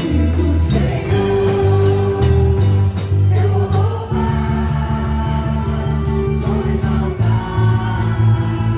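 Live worship band playing an upbeat praise song with a steady beat: drum kit, bass, electric guitars and keyboard, with singers at the microphones.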